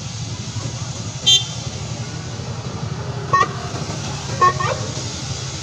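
Street traffic with a steady low engine rumble, broken by two short horn toots about three and a half and four and a half seconds in, and a brief high squeak a little over a second in.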